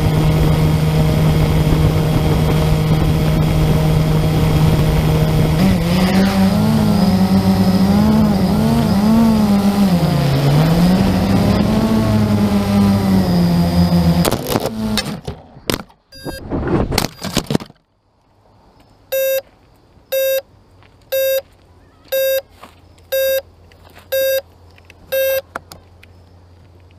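Blade 350 QX2 quadcopter's electric motors and propellers humming at a steady pitch, then the pitch rising and wavering as it flies. About fourteen seconds in it crashes: a few seconds of knocks and sputters as the motors cut out. Then seven beeps about a second apart.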